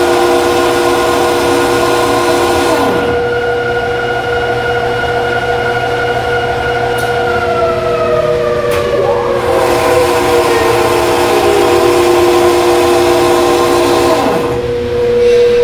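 Hydroelectric generating units whining and humming with several steady tones. A few seconds in the rushing noise drops away, and after a couple of faint clicks one set of tones glides slowly down in pitch: a generator set spinning down as the plant is shut off.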